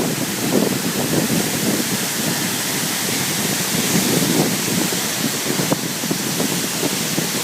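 A waterfall's steady rushing, with wind buffeting the phone's microphone in rough low gusts.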